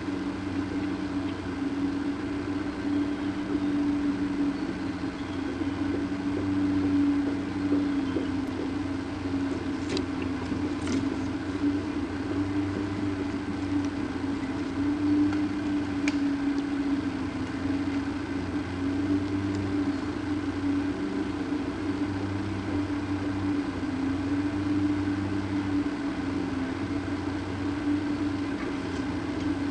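A steady low mechanical hum whose pitch wavers slightly, with a few faint ticks about ten and sixteen seconds in.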